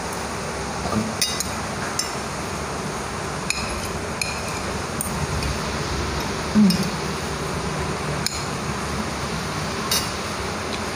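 Metal fork clinking lightly against a plate about eight times, scattered through, over a steady hiss of rain.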